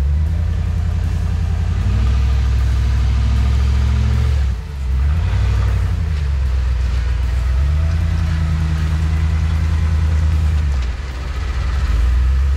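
Off-road vehicle's engine working on a rough trail, the revs rising and easing repeatedly. They drop briefly about four and a half seconds in and again near the end.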